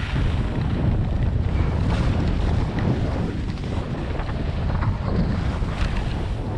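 Wind buffeting the camera's microphone while skiing downhill, a steady heavy rumble, with the hiss and scrape of skis carving on packed snow.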